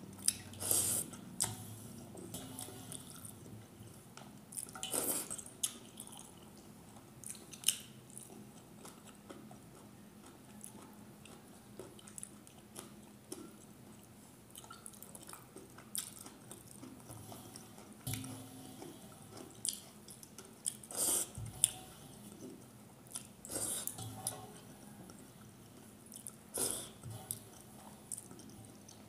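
Close-miked eating by hand: wet squishing of rice in its starch water between the fingers, rice water dripping back into a metal plate, and chewing of rice and small fish curry, in irregular short bursts.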